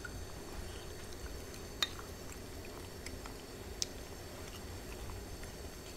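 Hot-pot broth simmering with small dripping, liquid sounds, and two sharp clicks of utensils on the dishes about two seconds apart, with a few fainter ticks between.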